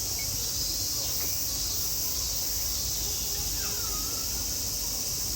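Steady high-pitched chorus of insects buzzing without a break, with faint distant voices underneath and a single faint gliding call about three and a half seconds in.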